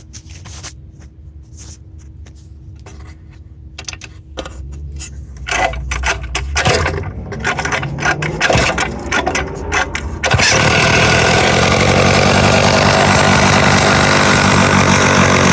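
Clicks and scraping as the chainsaw is handled and readied, then the freshly rebuilt Pioneer 650 two-stroke chainsaw starts on a single pull about ten seconds in and runs steadily and loudly.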